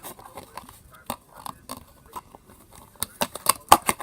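Slime being handled and put back into its small pot: irregular soft squelches, clicks and knocks, thickest near the end.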